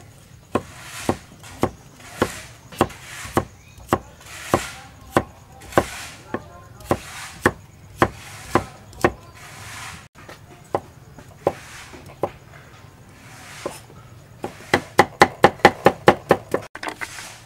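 Cleaver chopping carrots into thin strips on a round wooden chopping block. The strokes come steadily, a little under two a second, then a fast run of about a dozen quick chops near the end.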